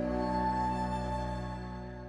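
Background music: a sustained, sad-sounding chord with a held high note, fading out over the last second.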